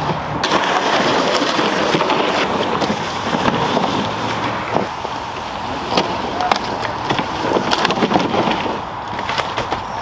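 Plastic sled loaded with ice-fishing gear dragged over ice and crusty snow: a steady scraping with many small clicks and crunches.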